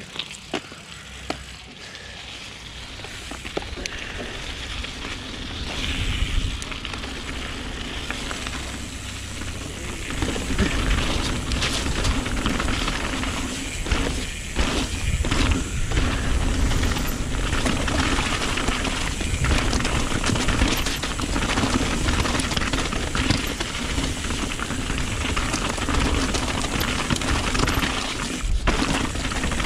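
Mountain bike riding down a gravel and rock downhill trail: tyres crunching over stones and the bike clattering and rattling over bumps, with wind rumbling on the camera microphone. It starts fairly quiet and gets louder about ten seconds in as speed builds.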